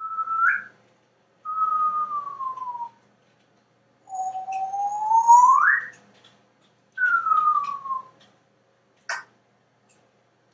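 African grey parrot imitating a slide whistle: four clear whistled glides, a short rise, a fall, a long slow rise and another fall, followed by a brief click.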